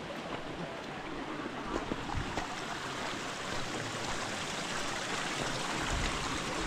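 Stream water running steadily, an even wash of sound.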